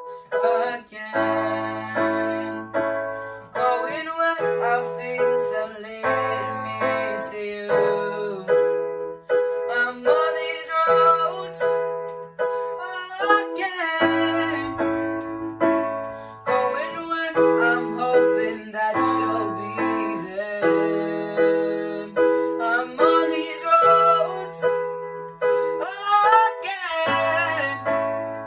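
Electronic keyboard played with a piano sound: repeating chords over held bass notes, in the pattern of a pop song.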